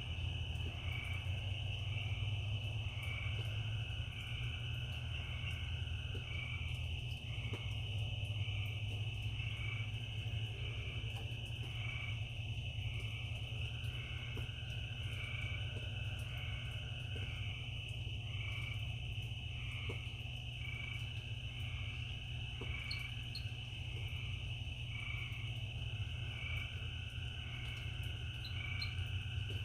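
Night chorus of crickets and frogs. A steady high insect trill runs throughout, with a regular chirp about once a second, while frogs call again and again lower down over a low background rumble.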